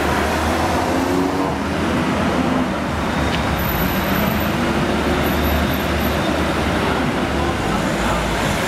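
Farm tractors' diesel engines and car traffic passing along a street: a steady low rumble.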